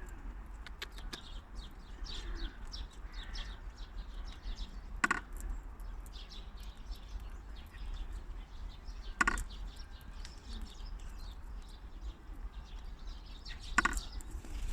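Squirrel feeder making three short, loud sounds about four to five seconds apart, with small birds chirping steadily around it.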